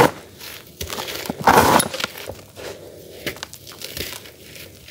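Hands crushing and crumbling damp, gritty charcoal cakes: grainy crunching and crackling. There is a loud crunch at the start and another about one and a half seconds in, then softer crackles.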